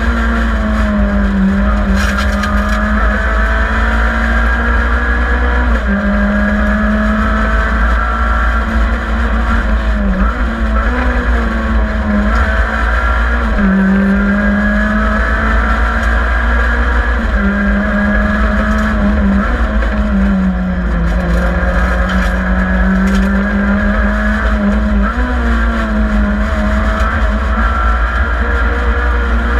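Group N class N3 rally car engine at full stage pace, heard from inside the stripped, roll-caged cabin. The engine note rises and falls every few seconds as it is worked through the gears, over steady road and wind noise.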